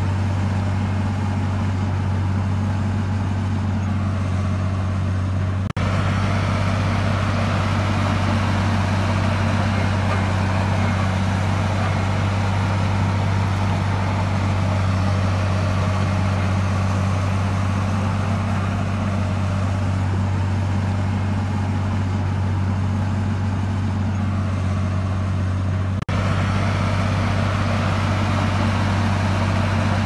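Bulldozer's diesel engine running steadily at an even pitch, with no change in load. The sound breaks off for an instant twice, about six seconds in and again later on.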